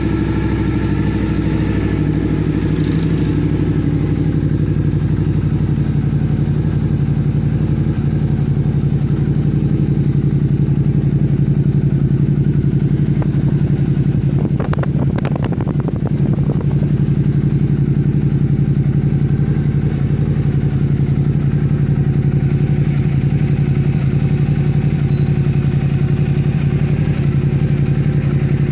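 Suzuki SV650's 645 cc V-twin idling steadily through an aftermarket Akrapovic-style slip-on exhaust, a copy of the Ducati V4 can. A few brief clicks come through about halfway.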